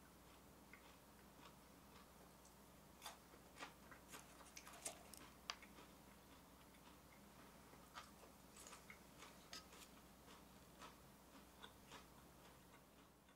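Faint, scattered light clicks and taps of plastic chopsticks against a plastic cup as pieces of popcorn are picked out, with a steady low hum behind.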